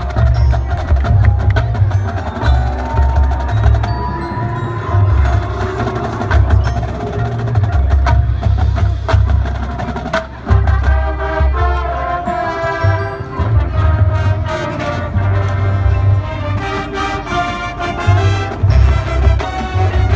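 High school marching band playing a field show, with wood block and mallet percussion such as marimba and bells prominent over low brass and drums.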